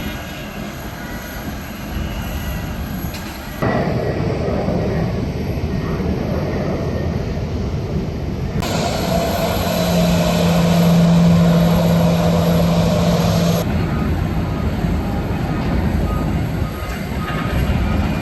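Airport ambience dominated by the steady running of jet aircraft engines, the noise shifting abruptly several times; in the middle a steady low hum joins in for about five seconds.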